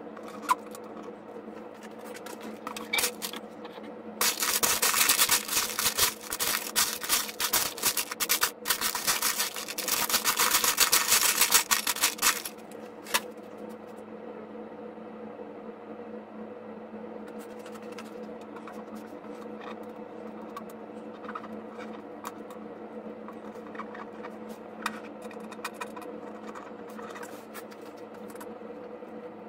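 Hand work driving small countersunk screws through a plexiglass pinball playfield window: a dense run of rapid clicking and scraping from about four to twelve seconds in, then a steady background hum with scattered faint ticks.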